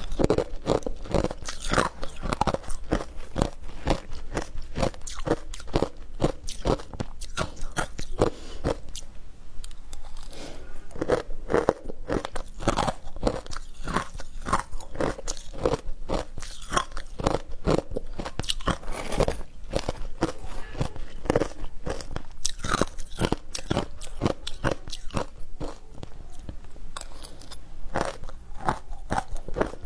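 Shaved ice coated in matcha powder being crunched and chewed, a fast, unbroken run of crisp crunches several a second.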